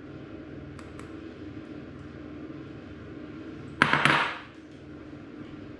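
Flour being sifted through a handheld wire-mesh strainer over a stainless steel bowl: a couple of faint clicks, then about four seconds in a short rattling burst as the strainer is shaken.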